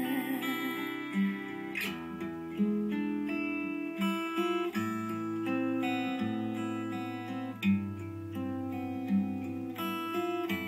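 Instrumental break of a song: strummed acoustic guitar over a bass line, played back through SonicGear Xanadu X3 desktop speakers with subwoofer on test.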